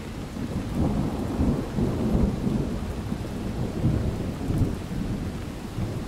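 Thunderstorm ambience: steady rain with a long roll of thunder that builds about a second in and rumbles on in uneven swells.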